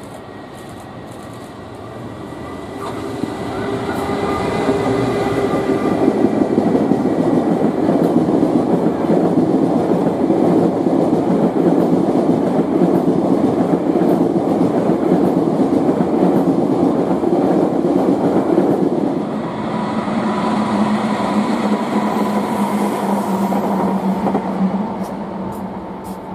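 EF210 electric locomotive hauling a long rake of unpowered Tobu N100 Spacia X cars, being delivered as freight, rolling past: a loud, steady rumble of wheels on the rails with a thin steady whine over it. It builds about three seconds in and eases off near the end as the last cars go by.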